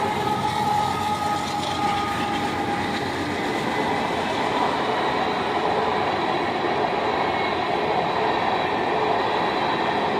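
Freight train passing a road crossing at close range: the diesel locomotive goes by as it opens, then the freight cars roll past with a steady rumble and clatter of wheels on the rails.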